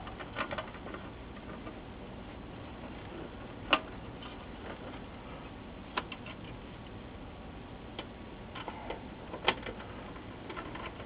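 Scattered light metallic clicks and taps of small screws and a screwdriver on the sheet-metal shield and chassis as a circuit board is screwed down. The sharpest click comes a little under four seconds in, with others around six and nine and a half seconds.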